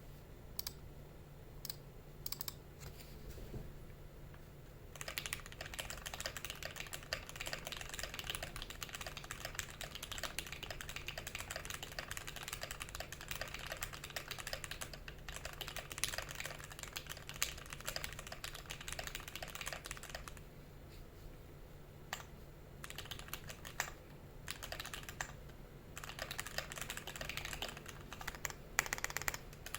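Typing on a Tofu65 custom mechanical keyboard with lubed Tealios V2 linear switches on a brass plate. A few scattered keystrokes come first, then fast continuous typing. The typing stops for about two seconds and resumes near the end.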